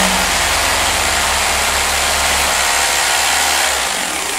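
Rotary hammer drilling into a concrete ceiling, its bit pressed into a rubber plunger used as a dust cup, hammering steadily, with a fine rapid pulsing under the noise. The drilling eases off near the end as the hole is finished.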